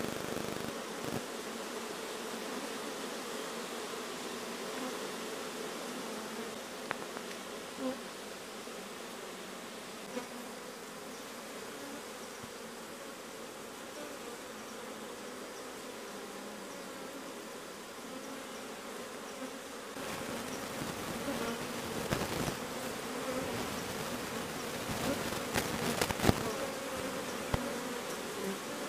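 A dense cluster of Asian honeybees (Apis cerana) buzzing steadily as a hand digs through them on the trunk. The hum grows a little louder in the last third, with a few sharp knocks near the end.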